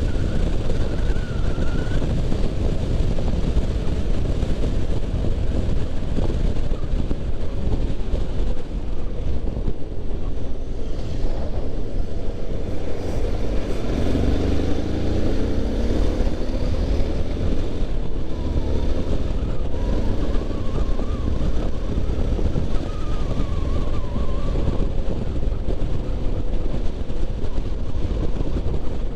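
Yamaha Ténéré 250's single-cylinder engine running under way, mixed with heavy wind rush on the microphone. About halfway through, the engine note climbs as the bike accelerates from a slow roll.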